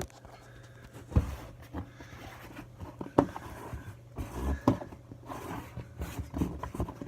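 Hands handling the PVC tubes of an inflatable boat: scattered knocks, taps and short scrapes, over a faint low steady hum.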